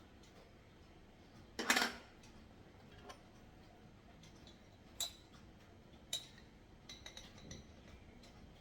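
Tableware being handled: a short, loud rustling burst about two seconds in, then a few sharp clinks of a utensil against a dish, two of them ringing briefly, with fainter taps near the end.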